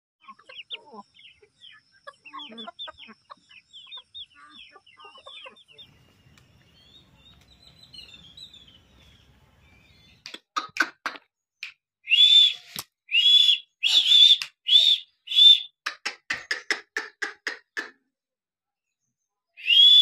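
Birds chirping and calling: soft, quick chirps at first, then, about halfway through, a run of loud, high, whistle-like calls about half a second each, followed by a fast series of short chirps.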